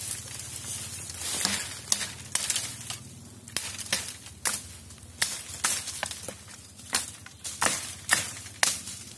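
Dry bamboo stems and dead leaf litter crackling and snapping as someone pushes and steps through a dense bamboo thicket, with about a dozen sharp cracks scattered irregularly over a constant rustle.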